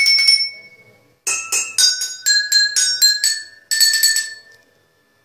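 Improvised jal tarang of water-filled glasses and steel bowls, struck one after another in short melodic phrases. Each note rings clearly and dies away; the phrases are separated by brief pauses, and the last notes fade out about three-quarters of the way through.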